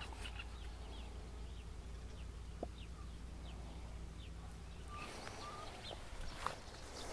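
Faint outdoor ambience with scattered short bird chirps over a low steady hum. In the last couple of seconds there is rustling and a few light clicks as the baited feeder rig and rod are handled.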